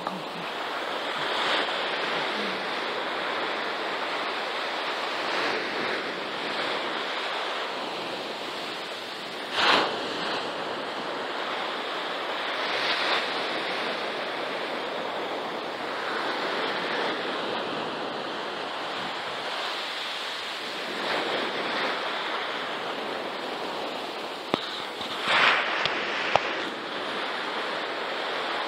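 Surf breaking on a beach, a steady wash of waves with louder surges now and then, the strongest about ten seconds in and near the end. A couple of sharp clicks come near the end.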